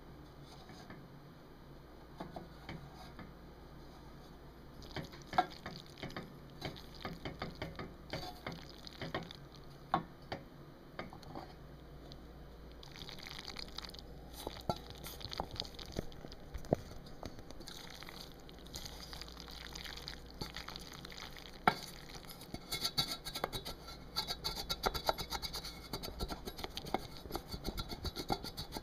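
Macaroni and cheese being stirred, a utensil clicking and scraping against its container with soft wet squelches. The clicks are sparse at first, come more often from about five seconds in, and get busier near the end.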